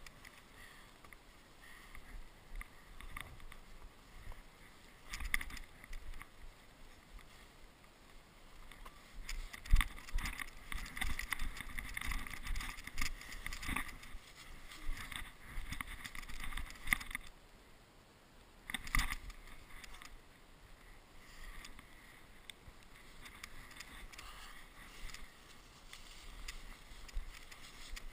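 Scraping and crunching of snow with rustling clothing, close to the microphone, in irregular bursts that are loudest from about ten to seventeen seconds in and once more near nineteen seconds.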